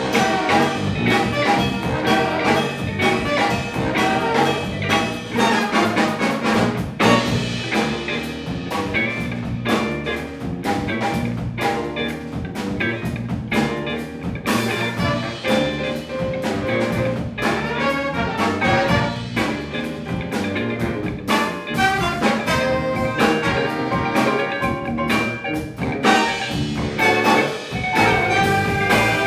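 Live jazz ensemble playing: a horn section of trumpets, trombones and saxophones over drum kit, electric bass, electric guitar and keyboards.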